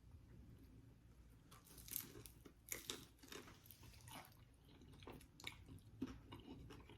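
Faint chewing on a mouthful of a pumpkin-filled treat. Soft crunches and small mouth clicks come at irregular intervals.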